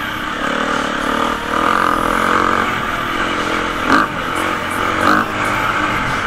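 Enduro motorcycle engine running as the bike is ridden off-road, with two short knocks about four and five seconds in.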